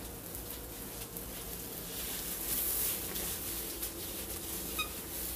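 Faint rustling and rubbing of a hand working texturizer cream through short hair, over a low steady hum.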